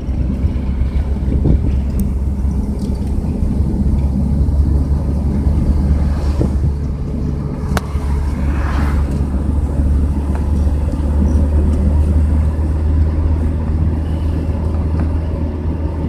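Car driving along a road, heard from inside: a steady low road and engine rumble. A brief swish rises and fades about eight seconds in as another car passes close by.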